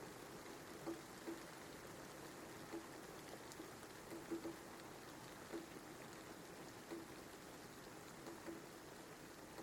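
Steady rain falling, a soft even hiss with heavier drops tapping on a surface about once a second.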